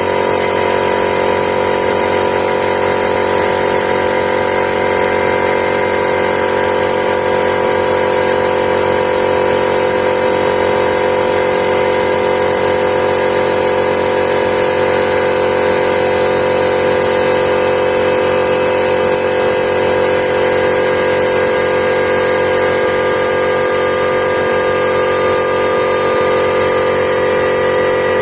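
MIKKELI AC-50 air compressor running steadily, its motor and piston pump refilling the receiver after a restart. This is normal running, with the oil level topped up.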